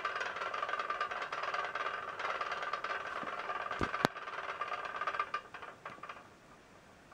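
Tin toy swing-chair carousel's mechanism whirring and rattling as the ride runs down, with one sharp click about four seconds in; it fades out and stops about six seconds in.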